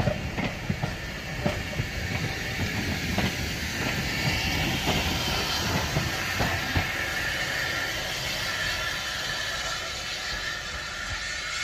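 Passenger carriages clicking over the rail joints as they pass, the clicks coming irregularly through the first half. A blue tank steam locomotive then passes with a steady steam hiss.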